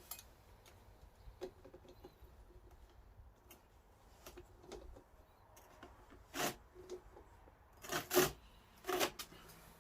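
Parasol parts being handled and fitted together: scattered small clicks and rubbing, with a few louder sharp clicks in the last few seconds.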